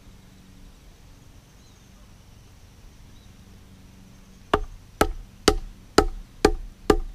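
Six sharp knocks of a wooden baton hammering the butt of a Fallkniven F1 knife's handle, driving the blade into a log across the grain. The blows come about two a second, starting about four and a half seconds in, each with a brief ring.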